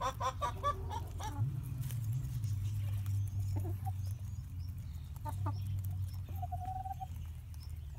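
Light Brahma hens clucking softly while they feed, scattered short calls with one longer held note near the end.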